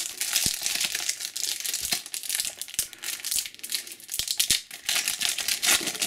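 Foil wrapper of a Panini Adrenalyn XL trading-card booster pack crinkling and crackling as it is handled and opened by hand, with many short sharp ticks through it.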